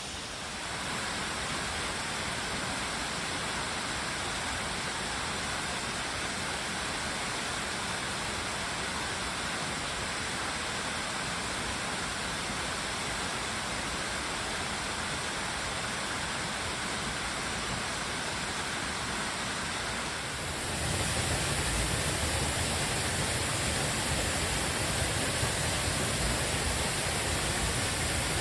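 Waterfall rushing steadily, a little louder from about twenty seconds in.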